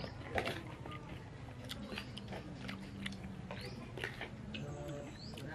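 Close-up mouth sounds of someone eating rujak: wet chewing with scattered small crunches and clicks from the pineapple, guava and fried peanuts.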